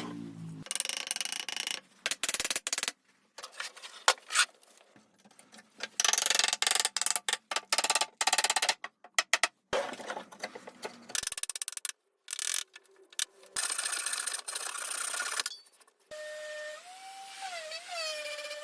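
Woodworking sounds in quick jump-cut succession: short stretches of scraping or rubbing on wood, broken by sharp knocks and sudden cuts. Near the end, a steadier sound with a wavering pitch.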